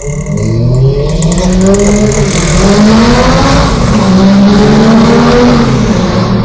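Lamborghini Gallardo's V10 engine accelerating hard, its note climbing in pitch twice with a gear change in between.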